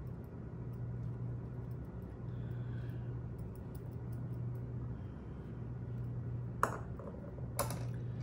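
Quiet scraping of a wooden spatula spreading soft cheesecake filling in a glass trifle bowl, over a steady low hum. Two sharp knocks near the end, about a second apart, as the spatula strikes the bowl.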